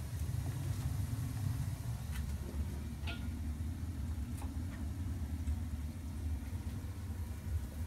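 Steady low hum of a running gas-fired hot-water boiler system and its circulator pumps, with a few faint light clicks.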